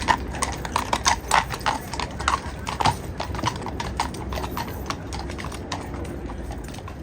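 Shod hooves of Household Cavalry horses clip-clopping at a walk, the hoofbeats thick and loud for the first three seconds, then sparser and quieter.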